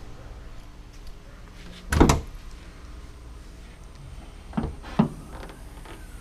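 Car hood being opened: a loud clunk about two seconds in, then two lighter knocks near the end.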